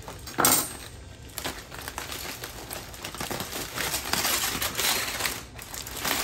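Aluminium foil crinkling and rustling as hands open up a foil-wrapped roast, with a sharp knock about half a second in.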